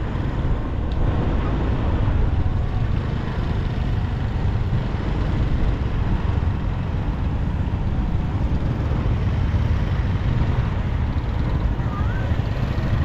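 Steady outdoor street ambience: a continuous low rumble under an even wash of noise, with no clear single event.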